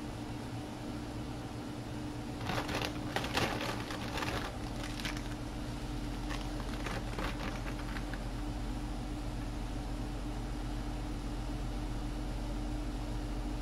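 Crinkling handling noise of packaging for about two seconds, starting a little over two seconds in, with a few scattered ticks after, over a steady kitchen hum with a faint held tone.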